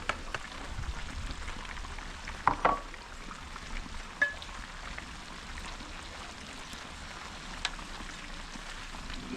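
Food sizzling as it fries in a pan: a steady hiss with a few sharp clicks about two and a half seconds and four seconds in.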